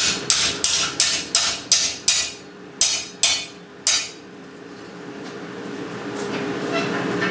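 Hand hammer striking steel: a quick run of about seven ringing blows, about three a second, then three slower blows, stopping about four seconds in.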